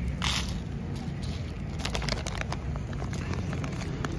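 A calico cat crunching dry kibble, a scatter of small sharp clicks, over a steady low rumble of street traffic, with a brief hiss just after the start.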